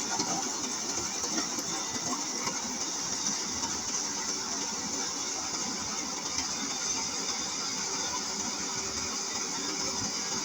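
Rice combine harvester running steadily, a continuous engine and machinery noise.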